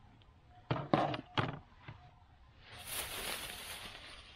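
Three quick knocks of cooking gear or food being set down and handled, then a crinkling rustle about three seconds in that fades out, like a plastic package being handled.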